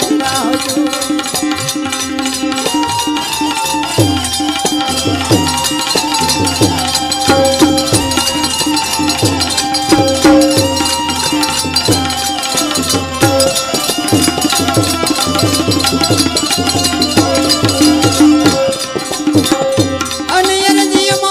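Devotional folk music: a melody over a steady drum beat.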